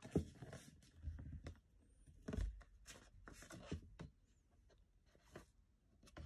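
Stiff card flash cards being picked up and handled: a scattered series of faint rustles, taps and soft knocks, the loudest about two and a half seconds in.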